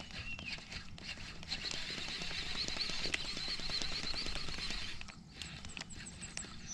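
Baitcasting reel and rod being handled during a lure retrieve, with small clicks throughout. A high wavering trill runs for about three seconds from a second and a half in, and a few short high chirps follow near the end.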